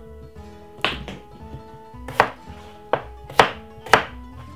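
Kitchen knife chopping a potato into chunks on a cutting board: four sharp knocks at uneven intervals, the last two close together. Soft background music plays underneath.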